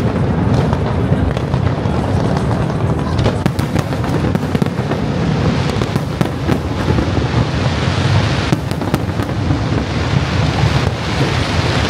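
Aerial fireworks bursting in a dense, continuous barrage at close range. A steady low rumble of shell bursts is overlaid with clusters of sharp cracks and crackles.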